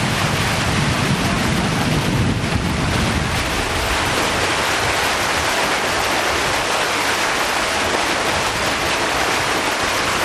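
Steady rush of wind and water from a boat under way, heard through a camcorder microphone. A heavier low rumble under it drops away about three and a half seconds in.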